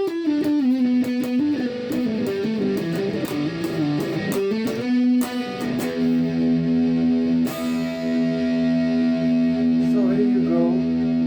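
Washburn Eagle electric guitar played through overdrive: a quick run of single notes that winds downward, then a chord struck about five seconds in and left ringing, with a note bent near the end.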